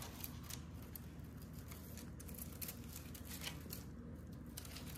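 Faint rustling and small irregular crackles of a pine wreath's sprigs being handled as fingers tuck the wire of a fairy-light string into it.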